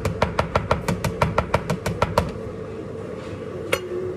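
Metal spoon clinking rapidly against the inside of a stainless-steel measuring cup, about six ringing clinks a second, as thick ketchup is scraped out into a mixing bowl; the clinking stops about two seconds in, and one more clink comes near the end.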